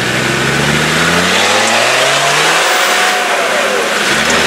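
Land Rover Discovery Td5's five-cylinder turbodiesel engine revving hard under load as it climbs a muddy rut. The revs climb over the first two seconds and hold high, then fall away near the end.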